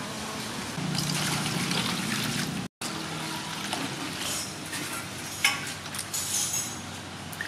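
Hands scrubbing eels coated in ash against a metal bowl, then, after a brief break, water poured into an aluminium basin and splashing as the eels are rinsed by hand, with one sharp click about halfway through the rinsing.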